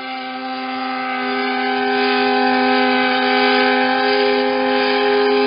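Ship's steam whistle sounding one long, steady blast: a chord of more than one pitch, held without wavering.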